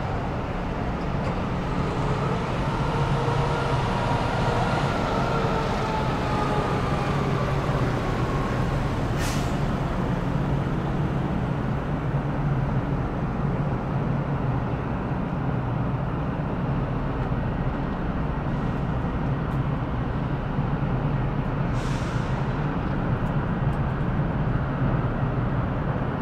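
Road traffic with heavy vehicles: a steady low engine rumble, with a passing vehicle's whine rising and then falling over the first eight seconds or so, and two short hisses about nine and twenty-two seconds in.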